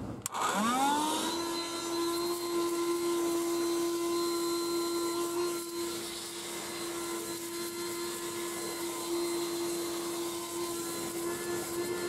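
FOURING NZ702 Super Cyclone 12V 150W car vacuum switched on with a click. Its motor spins up with a rising whine that levels off within about a second, then runs at a steady pitch.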